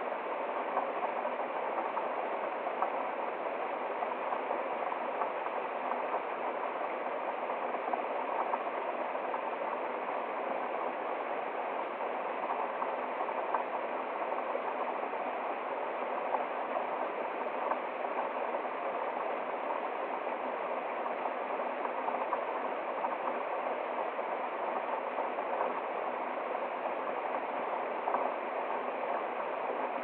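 Steady rush and splash of a small woodland waterfall running over rocks into a stream.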